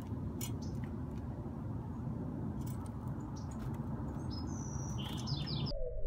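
Small birds giving short, faint chirps over a steady low background rumble, with a quick run of chirps near the end. Just before the end the sound cuts abruptly to a muffled one with a falling call.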